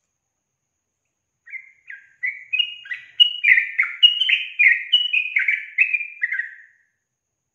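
Yellow-vented bulbul singing: a fast run of about fifteen short notes, each dropping in pitch. It starts faint about a second and a half in, is loudest in the middle, and stops about a second before the end.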